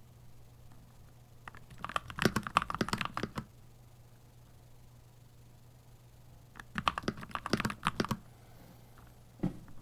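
Keychron C2 Pro 8K mechanical keyboard being typed on: two quick runs of keystrokes of about a second and a half each, a few seconds apart, then a single key press near the end.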